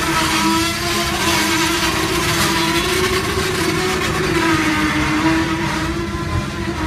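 A freight train's cars rolling steadily past, a continuous rumble and rail noise with a steady, slightly wavering tone running underneath.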